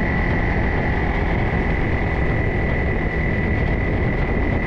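Vehicle running steadily while driving along a dirt trail: engine and rumble from the wheels, with a steady high-pitched whine above.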